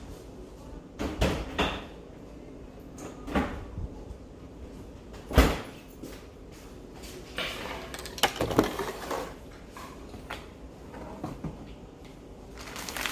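Cupboard doors and kitchen items knocking and clattering as someone rummages through cabinets: scattered knocks, a sharp bang about five seconds in, and a busier run of clatter around eight seconds.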